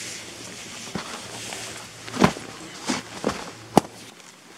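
Nylon tent fabric rustling as a person climbs out of a backpacking tent, with several sharp knocks and scuffs of knees and boots close by, the loudest about two seconds in and again near the end.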